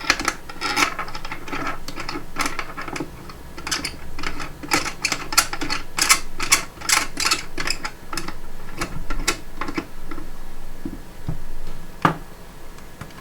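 The resin vat of an Anycubic Photon M3 resin 3D printer being set onto the printer and locked down: a run of irregular clicks, scrapes and rubbing, with a sharp knock near the end.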